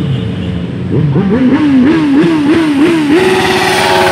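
Sport motorcycle engine revved in about six quick throttle blips, then held at a high steady pitch as the bike passes close.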